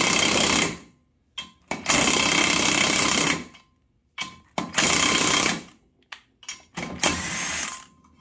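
Impact wrench running in short bursts: one ends just under a second in, then three more follow, the first about a second and a half long and the others about a second, with small metal clicks between them. It is driving a nut down onto stacked rocker-arm pivot balls to pull a pressed-in rocker stud out of a cast iron cylinder head.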